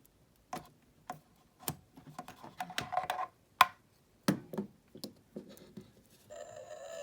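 A Lost World: Jurassic Park Chasmosaurus toy figure being worked for its sound feature: a run of sharp plastic clicks and taps, then a weak, short buzzing tone near the end. This is the figure's very weak sound effect.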